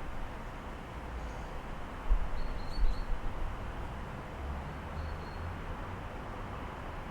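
City ambience heard through an open window: a steady hum of distant traffic, with a few faint high bird chirps in the middle and later on. Two low thumps, about two and three seconds in, are the loudest sounds.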